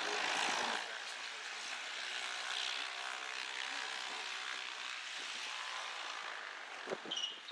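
McDonnell Douglas MD-82 jet engines (rear-mounted Pratt & Whitney JT8D turbofans) running during the landing roll: a steady rushing noise with a faint whine, loudest in the first second. A few brief knocks come near the end.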